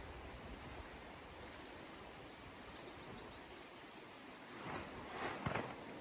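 A large synthetic tarp rustling and crinkling as it is gathered up, with the loudest flurry of rustling near the end, over a steady rush of flowing river.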